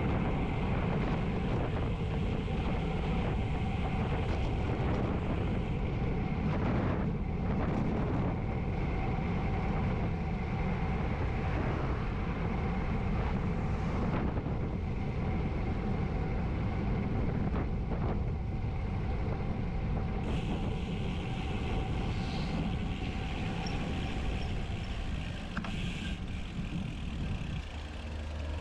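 Wind buffeting the microphone of a GoPro HERO9 on a moving road bike, a steady low rumble with road and tyre noise and a faint steady hum, easing a little near the end.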